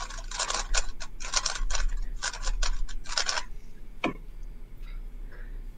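3x3 speedcube being turned at speed, a rapid clatter of plastic clicks from the layers snapping round, stopping about three and a half seconds in. A single sharp tap follows about half a second later.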